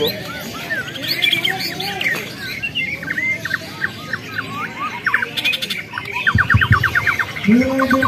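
White-rumped shamas (Borneo murai batu) singing from their cages: a string of varied whistled and chirped phrases, then a fast trill of short repeated notes late on. A lower call sounds near the end.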